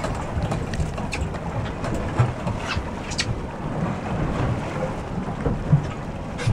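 Steady low rumble of a boat's motor turning slowly at sea, with wind on the microphone and a few light knocks and clicks.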